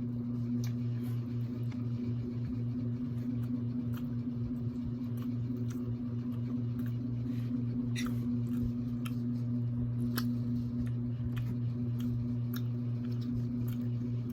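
Close-miked eating sounds: scattered small clicks, smacks and crackles of someone eating seafood such as crab and shrimp, over a steady low hum.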